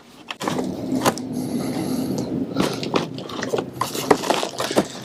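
Rapid, dense clicking and rattling of small hard objects being handled.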